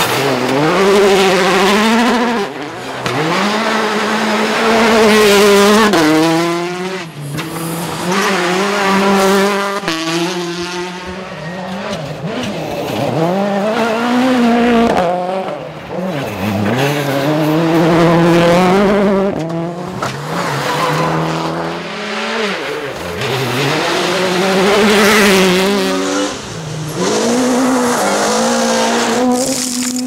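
World Rally Car engines, 1.6-litre turbocharged four-cylinders, driven flat out on gravel in several passes. Each engine note climbs and drops repeatedly through gear changes and lifts off the throttle, over the hiss of the tyres on gravel.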